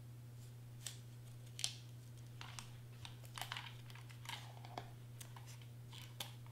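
Scattered small clicks and paper rustles as cardstock is handled and tape is pulled at on a plastic tape runner that is nearly used up, over a steady low hum.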